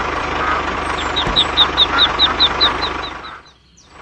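Small engine of a DIY mini tractor running steadily with a fast low chug. A high chirp repeats about five times a second through the middle. The sound drops out briefly near the end, then resumes.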